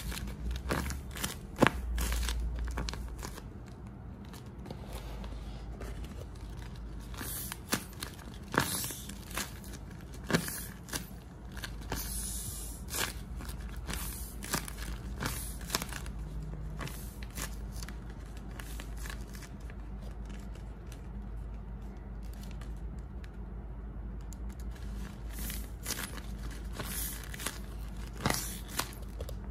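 Crinkling and crackling of a tape-covered paper squishy being squeezed and turned in the hands, irregular sharp crackles throughout. Plastic mailer packaging rustles near the start.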